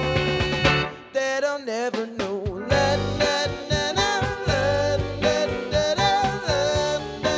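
Live jam band of electric guitar, keyboard, bass, drums and saxophone playing an instrumental passage. About a second in the bass and drums drop out, leaving a lone wavering melodic line, and the full band comes back in near three seconds in.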